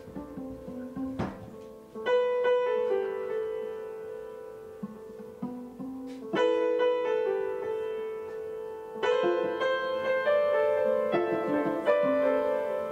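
Upright piano, front panel off, playing a slow passage. Full chords are struck about every three seconds and left to ring and fade, with softer low notes moving between them.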